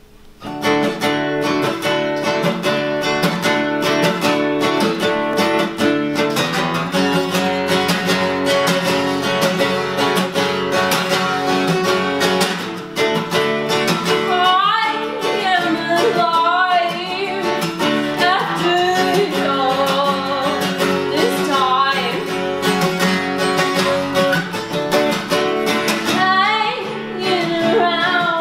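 Acoustic guitar strummed steadily in a chord pattern. About halfway through, a voice comes in singing over it.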